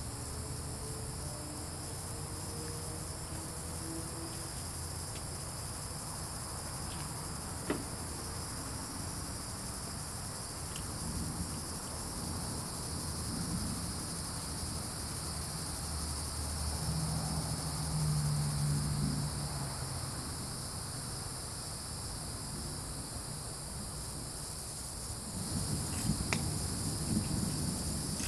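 Evening insect chorus: crickets and other insects shrilling steadily in several high bands, over a low rumble. A brief low hum comes in a little past halfway.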